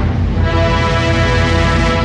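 Symphony orchestra playing a passage of a symphonic poem: held chords over a steady low rumble in the bass, with a new chord entering about half a second in.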